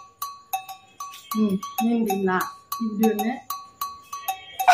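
A steady percussion beat of cowbell-like clicks, about four a second, with a few short phrases from a voice over it.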